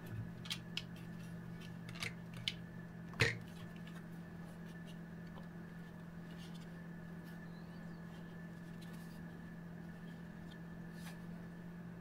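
Hard plastic parts of a 3D-printed ABS purifier housing, a case fan and a HEPA filter being handled and fitted together: a few light clicks and taps in the first few seconds, the sharpest about three seconds in. A steady low background hum runs underneath.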